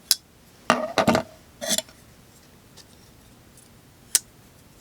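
WE Knife Kitefin framelock flipper knives being flicked open and closed, giving sharp metallic clicks as the blades deploy and the locks snap in: one click right away, a quick cluster of several about a second in, and a single crisp click near the end.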